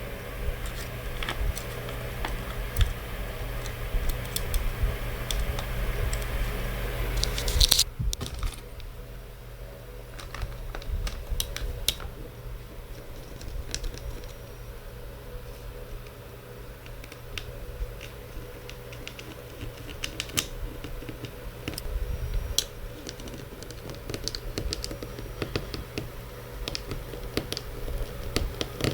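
Scattered small clicks and taps of hands and tools working on the open laptop's parts, over a steady low hum. A brief louder rustle comes just before eight seconds in, after which the hum drops and the clicks go on more sparsely.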